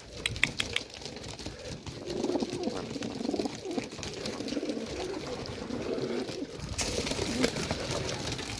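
Young racing pigeons cooing in the loft, several low coos overlapping from about two seconds in. There are a few quick clicks in the first second and a rise in hiss near the end.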